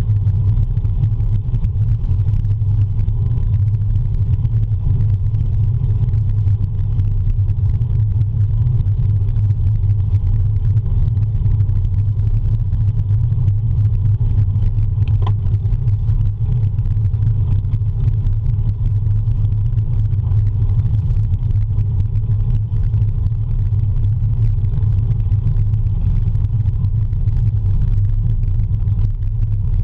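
Steady low wind rumble and road noise on a handlebar-mounted camera's microphone on a road bike riding at speed. A single brief click about halfway through.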